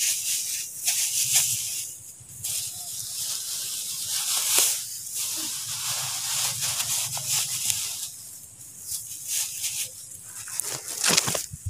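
Rustling of grass and bundled rice seedlings being handled close to the microphone, a crackly hiss that comes and goes unevenly.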